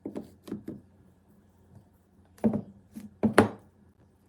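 Pieces of aquarium rock knocking and clacking as they are handled and set down on a hard surface. A few light knocks come first, then a louder cluster from about two and a half seconds in.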